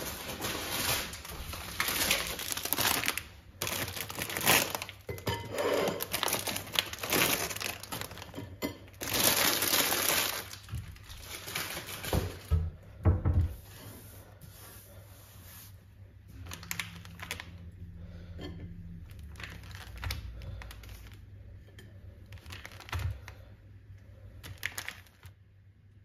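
Kitchen handling sounds of crispbread being laid out: a run of loud crinkling and crackling through the first half, a couple of low thumps, then quieter clicks and knocks of a plate and cheese slicer on the countertop.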